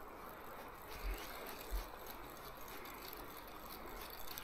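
Steady faint rush of flowing river water, with two brief low thumps about a second in and just before the two-second mark.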